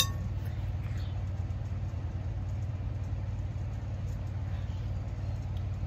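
A steady low hum runs without change, with no speech over it.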